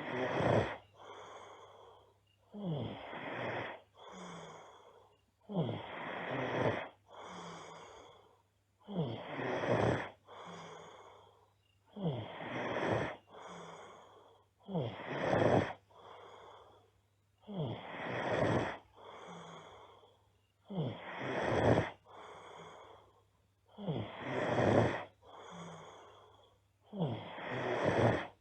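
A girl snoring loudly in sleep, in a steady rhythm of about one breath every three seconds. Each breath is a loud snore followed by a quieter second sound.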